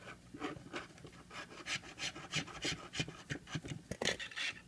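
Long screwdriver turning out a screw inside a PowerBook power supply's plastic case, a run of short scraping, rasping strokes at about three a second, with a louder scrape near the end.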